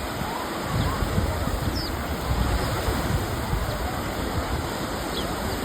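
Steady rush of surf and wind, with wind buffeting the microphone and a couple of faint, short, high chirps.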